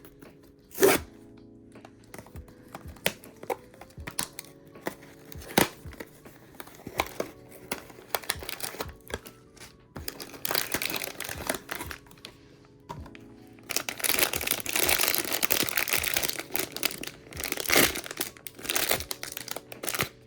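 Blind-box packaging being opened by hand, with scattered clicks and tears at first. From about halfway in comes steady crinkling and tearing of the wrapping, loudest near the end, over soft background music.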